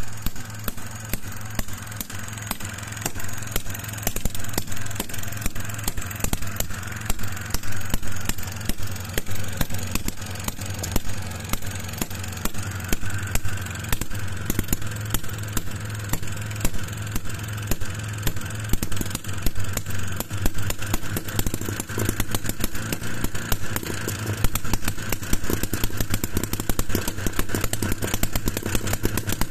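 Home-built 12 cm³ single-cylinder two-stroke model engine (Motor 71, Version A) running steadily: a rapid, even train of firing clicks over a low hum.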